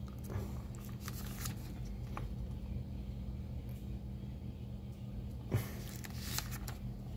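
Paper brochure pages being turned and handled, rustling in short bursts during the first second and a half and again near the end, with one sharper slap of paper among the later bursts. A steady low hum runs underneath.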